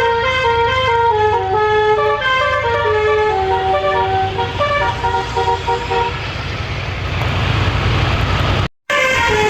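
A bus's six-note telolet horn plays a quick tune of changing notes for about six seconds, then gives way to engine and road rumble. After a sudden brief dropout near the end, the horn tune starts again.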